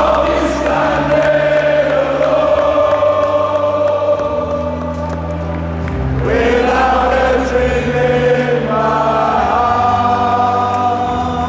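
Background music: a choir singing long held notes over steady bass notes that change every couple of seconds.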